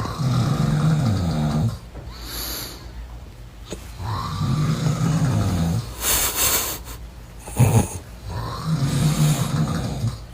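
A man snoring loudly: three long, rattling snores about four seconds apart, with a breathy hiss between them and a brief sharp snort-like sound just before the third.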